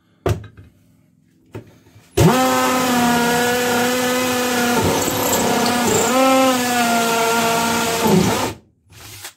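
Bosch GSB 120-LI 12V cordless combi drill in hammer mode, running an 8 mm masonry bit into a hollow clay brick. The motor starts about two seconds in and runs steadily for about six seconds, its pitch dipping briefly twice as the bit bites, then stops as the bit goes through.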